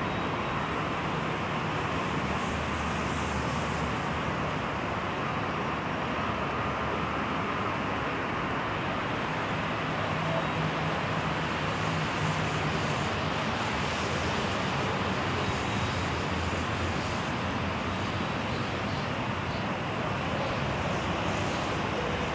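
Steady outdoor noise of distant road traffic and wind on the microphone, with a faint low hum coming and going in the middle.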